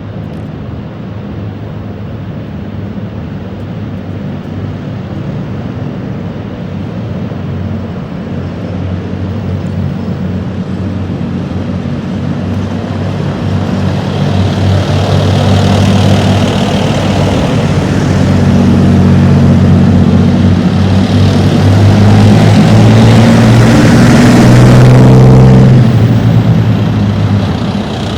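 Leopard 2 tanks' V12 diesel engines running as the tanks drive past. The sound builds steadily to its loudest a little before the end, then drops away.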